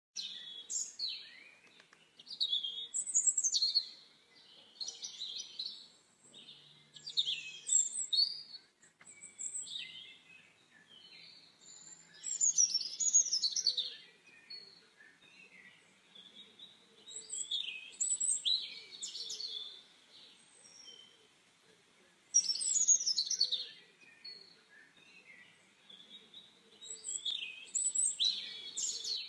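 Songbird song: short phrases of high chirps and trills, each a second or two long, repeated every few seconds with pauses between.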